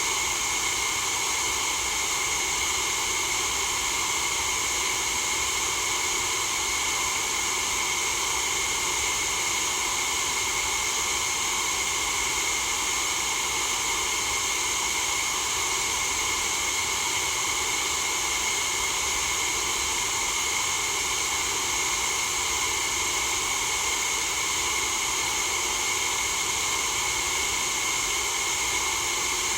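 Steady empty ambience noise: an unchanging hiss with no separate events.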